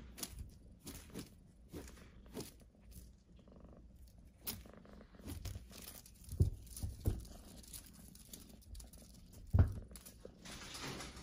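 Crinkling and rustling of a feather-and-tinsel teaser toy as a kitten bats at it, with scattered soft thumps of paws on a felt-covered surface. The loudest thumps come about six and a half, seven and nine and a half seconds in.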